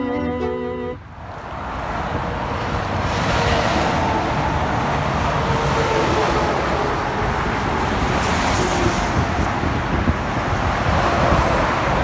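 Background music cuts off about a second in, giving way to a steady wash of road traffic noise.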